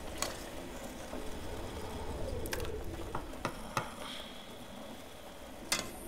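A spoon stirring in a cooking pot: a handful of sharp clinks and knocks against the pot, spread unevenly, over a low steady hum.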